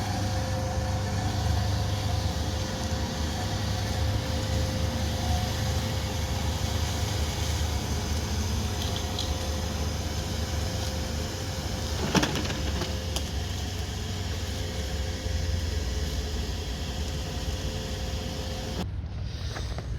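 Nilfisk Multi II wet and dry vacuum cleaner running steadily with a thin constant whine over a low hum. There is a sharp knock about twelve seconds in, and near the end the upper hiss cuts off abruptly.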